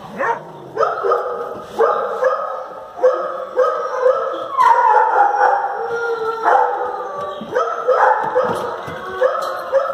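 Several dogs barking repeatedly. The barks overlap, and one longer, falling howl comes about halfway through.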